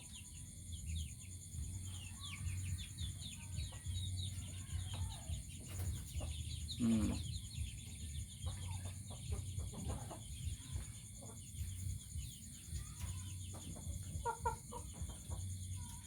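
Chickens clucking, with many short high chirps throughout.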